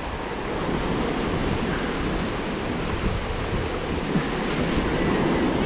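Ocean surf breaking and washing up a sandy beach, a steady rushing hiss, with wind on the microphone.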